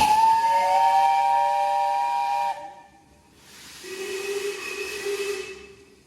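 Steam locomotive whistle: a loud blast of several notes at once, over a hiss of steam, that cuts off sharply after about two and a half seconds. About a second later comes a second, lower-pitched blast with steam hiss, which fades away before the end.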